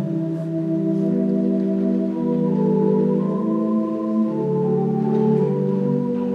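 Organ playing slow, sustained chords, the held notes moving to new pitches every second or two.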